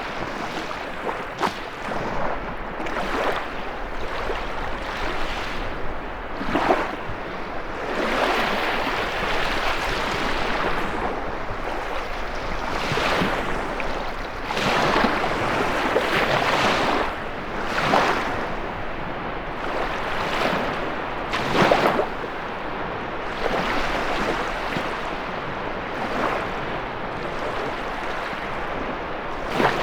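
Storm waves on a lake breaking and washing in irregular surges a few seconds apart, with a few sharper crashes, over steady wind.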